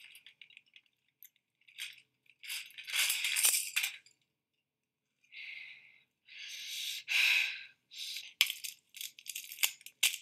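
Hairbrushes being handled and rubbed, giving several bursts of scratchy rustling a second or two long, then a run of quick clicks and rattles near the end.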